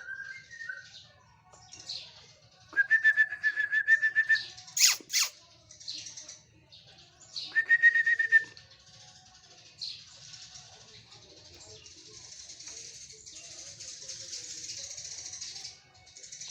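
A murai songbird singing two fast, rattling trills on one pitch, the first about three seconds in and the second near eight seconds. Two sharp clicks come about five seconds in, and a steady high hiss fills the second half.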